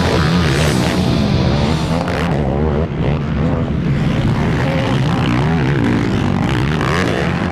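Racing ATV (quad) engines revving hard, the pitch climbing and dropping again and again as the riders work the throttle over a jump, with rock music underneath.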